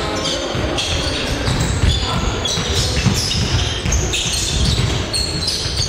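Basketball game on a wooden gym floor: the ball bouncing and players' shoes squeaking in short high bursts, in a reverberant hall.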